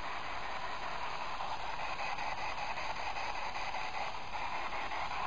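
Steady static-like hiss with no distinct sounds in it: the recording's background noise in a quiet room.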